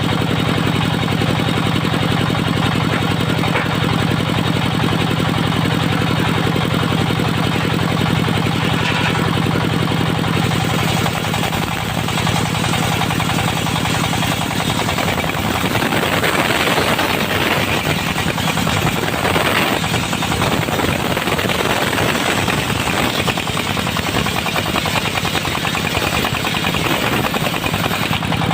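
Engine-driven circular sawmill running continuously. About halfway through, the steady engine note turns rougher and a hissing edge joins it.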